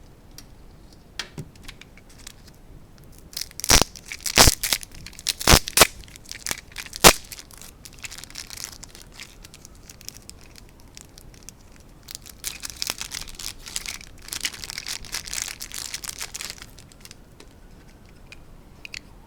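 Mailed packaging being torn open by hand: a few sharp rips and snaps a few seconds in, then a longer stretch of crinkling and rustling.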